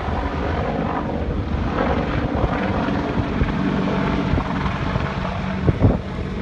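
AH-64 Apache attack helicopter flying overhead: steady rotor and engine noise with a constant hum, and a single sharp thump near the end.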